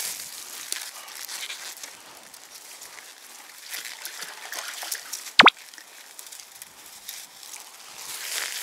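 Water sloshing and trickling, with scattered light crackling and rustling. About halfway through, a brief sharp squeak stands out as the loudest sound.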